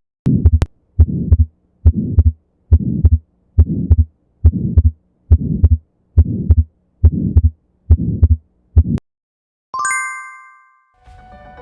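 Heartbeat heard through a stethoscope, the murmur of an atrial septal defect: about a dozen beats at a little under one a second, each with a murmur smeared around the heart sounds. After the beats stop, a single chime rings and fades, and music starts just before the end.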